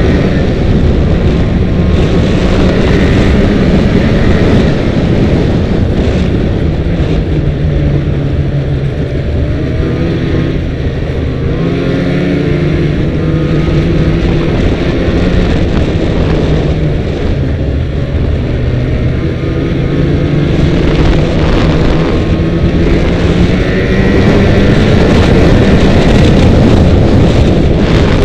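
Snowmobile engine running under way, heard from on board, loud and continuous, its pitch rising and falling with the throttle.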